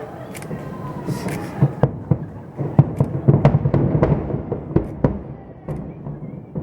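Aerial fireworks bursting in rapid succession during a finale barrage: a dense run of booms and crackling reports over a continuous low rumble, thickest about three to four and a half seconds in.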